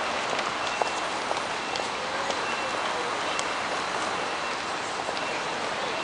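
Street noise at a busy city intersection: a steady hiss of traffic and passers-by, with scattered small clicks and a few short, faint high beeps.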